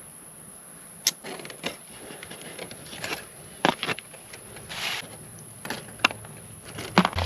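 Steady high-pitched insect chorus, with irregular clicks, knocks and short rustles of things being handled from about a second in.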